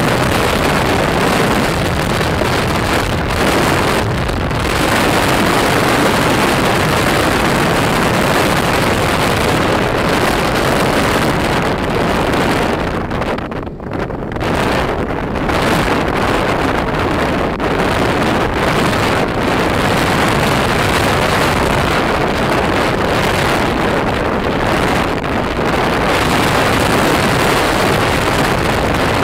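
Wind rushing over the microphone of a phone carried on a moving motorbike, a loud steady noise with the road and engine noise blended in. It dips briefly about halfway through.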